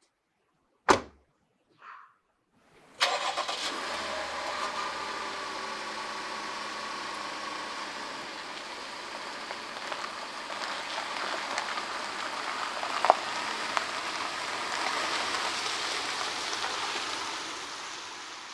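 A car door shuts about a second in. About three seconds in, a Jeep Grand Cherokee's engine cranks and catches, then keeps running as the SUV pulls away. The sound fades near the end.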